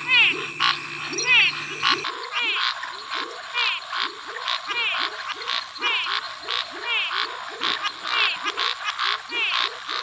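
Snouted treefrog (Scinax x-signatus) calling: short notes that fall in pitch. About two seconds in, the calls change to its territorial call, a quicker run of falling notes at about three a second.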